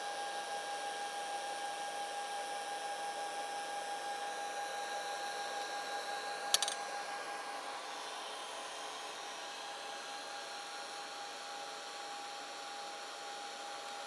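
A 3D printer's cooling fans whirring steadily with a thin constant whine, while the machine sits idle after a print. A single sharp click comes about six and a half seconds in, and the whir drops a little soon after.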